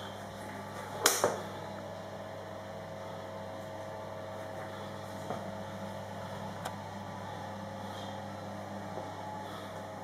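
Steady low electrical hum, with a sharp click about a second in and a couple of faint ticks later.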